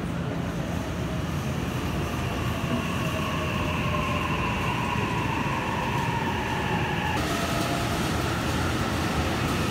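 E657 series electric limited express train pulling into the platform, a low rumble under a motor whine that slowly falls in pitch as it brakes. About seven seconds in, the sound changes abruptly to the same train pulling out, with a new steady whine.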